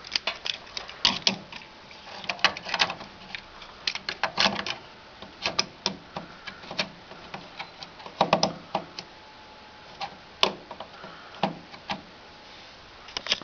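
Irregular plastic clicks and knocks as a clip-on RAM cooling fan is fitted back over the memory sticks inside a desktop PC, with one sharper click about ten seconds in.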